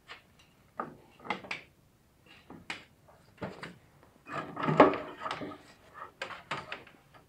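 Irregular knocks and clatters of hard objects being handled, with a longer, louder stretch of rattling about halfway through.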